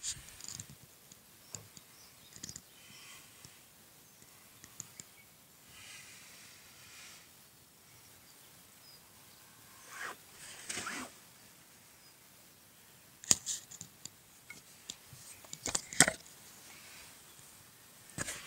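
Intermittent rustling of tent fabric and handling noise, broken by a few sharp clicks, the loudest two about thirteen and sixteen seconds in.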